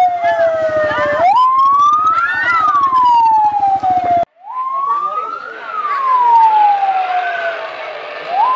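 Vehicle siren wailing, its tone rising quickly and then falling slowly in a repeating cycle, sounding to call an evacuation. It breaks off for a moment about four seconds in and then carries on.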